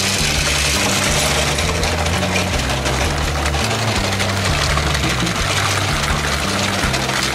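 A battery-powered toy train's small motor whirs steadily as it runs on plastic track. Background music with a stepping bass line plays under it.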